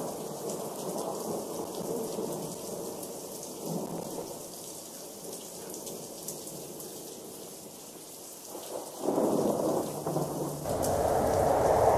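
Steady rain with rumbles of thunder: a louder rumble about nine seconds in, and the sound builds again near the end.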